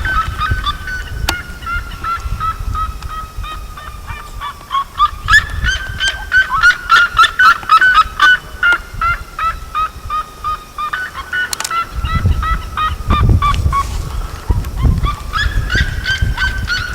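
A flock of farm birds calling: many short, pitched calls repeated rapidly and overlapping, busiest in the middle, over a low rumble.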